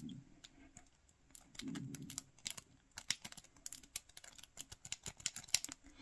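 Faint, quick, irregular metallic clicking of a city rake lock pick being wiggled in a mini brass padlock's keyway, the pins ticking as they are raked, without the lock opening.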